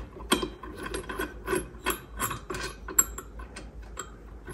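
Irregular metallic clicking and rubbing, two to three clicks a second, as the centre bolt of a Polaris Sportsman's primary drive clutch is run in by hand before torquing.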